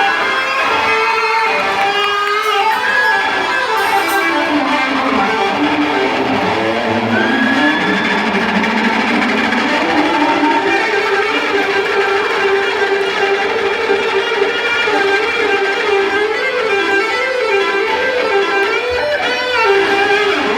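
A rock band playing live, with electric guitar to the fore and a melody that slides up and down.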